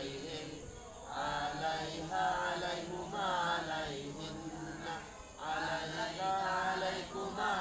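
A group of boys reciting a lesson text aloud in unison, a sing-song chant in phrases with short breaks between them.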